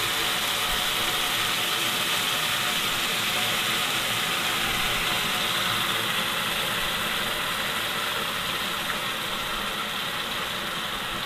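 Boiling water poured over basmati rice fried in oil in a pan, the hot oil sizzling and the water bubbling hard: a steady, loud hiss.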